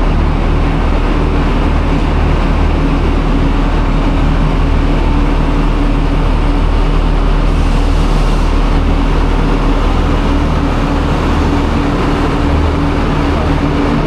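Diesel train engine idling steadily, a constant low hum, with a short hiss about halfway through.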